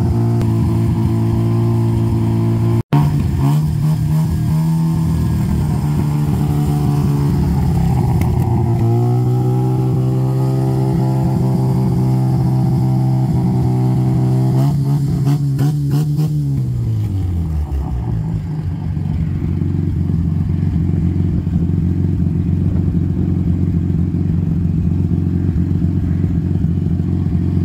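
Mazda RX4's rotary engine held at raised revs, dipping briefly about eight seconds in and rising again. It drops back to a steady idle about two-thirds of the way through. The engine is smoking as it burns off diesel that was poured into it to free it up after years of sitting.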